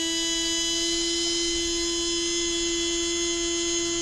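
Tamiya stock brushed motor spinning unloaded on a motor dyno at about 20,400 RPM from a 7.4 V LiPo setting: a steady electric whine with many overtones.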